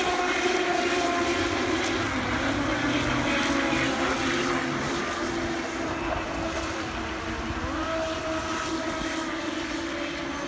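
Several radio-controlled racing boats, including a yellow Pro Boat Recoil, running fast across the water: the steady whine of their brushless electric motors, several tones shifting in pitch as the boats race, one rising about two-thirds of the way in.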